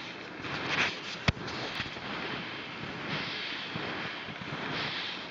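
Wind rushing over the microphone, swelling and easing, with one sharp click a little over a second in.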